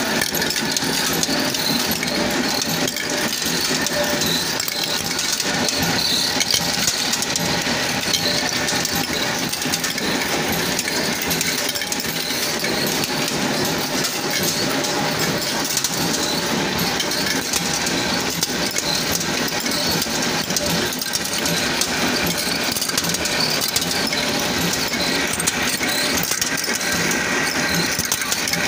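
Continuous dense metallic clatter of freshly made hex nuts pouring from a nut-making machine's chute into a metal tray, over the steady running of the factory's machinery.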